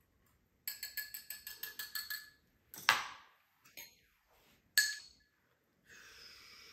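Wire whisk beating vinaigrette in a small ceramic bowl, its wires clinking rapidly against the bowl, about eight times a second for a second and a half. Then two separate sharp clinks of a utensil on the ceramic, and a faint steady hiss near the end.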